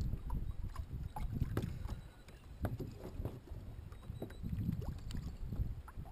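Wind rumbling on the microphone out on open water, with scattered light clicks and knocks as a kayak anchor line is pulled and its rope reel is handled.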